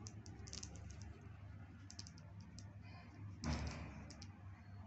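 Pen writing on paper: small scratches and irregular ticks as letters are formed, over a low steady hum, with a brief louder swish about three and a half seconds in.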